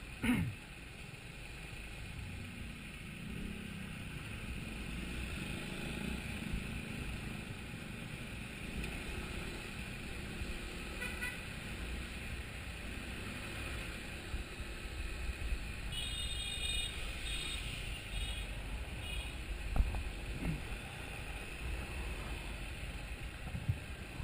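Motorcycle riding through slow city traffic: a steady rumble of engine, tyres and wind. A vehicle horn toots several short times about two-thirds of the way in, and there are a couple of brief thumps.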